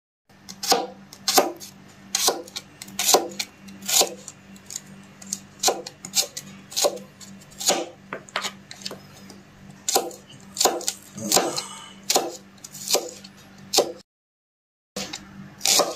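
Kitchen knife slicing garlic cloves on a plastic cutting board: a sharp knock of the blade on the board about every half-second to second. The sound drops out completely for about a second near the end.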